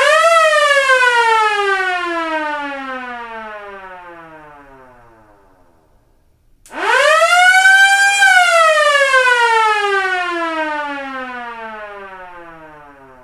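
Police car siren sound effect: two wails, each rising quickly to a peak and then sliding down slowly in pitch over about five seconds as it fades away. The second wail starts about seven seconds in and climbs a little higher before falling.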